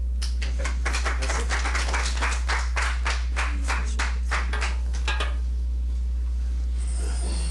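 A small group clapping quickly and unevenly for about five seconds, then stopping. A steady low hum runs underneath.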